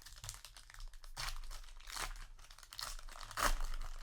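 Foil trading-card booster pack being torn open and crinkled by hand, a series of irregular rips and crackles with the loudest tear about three and a half seconds in.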